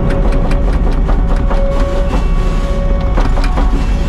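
Earthmoving machine digging: its engine running with a steady whine, under irregular clanks and knocks of the bucket working through dirt and rock.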